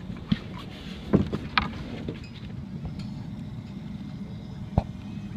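A few sharp knocks and thumps as a live walleye is handled and laid into a wooden and metal measuring trough, the loudest about a second in. A steady low machine hum runs underneath.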